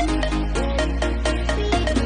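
Background music with a steady electronic beat and a deep bass line.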